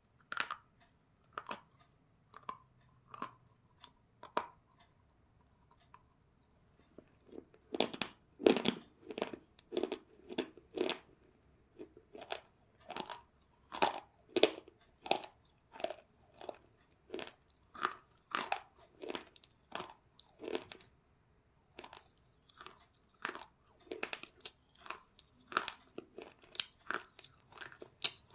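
A person biting into and chewing crunchy white slabs, making crisp crunches. The crunches come singly and sparsely at first, then from about seven seconds in turn into steady chewing at roughly two crunches a second.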